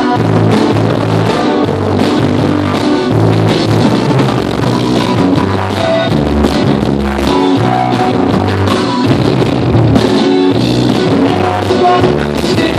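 Loud recorded dance music played over a sonidero sound system: drums, guitar and a repeating bass line keeping a steady beat.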